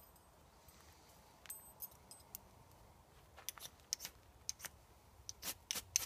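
Ferrocerium rod struck with a steel striker to light a campfire: after a quiet start, a run of quick, sharp scrapes in the second half, the last ones the loudest as sparks shower onto the kindling.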